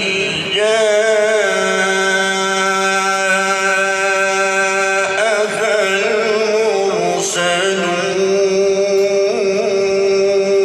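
A man reciting the Quran in the melodic tajweed style, drawing out long held notes with wavering ornaments, with a short break about seven seconds in.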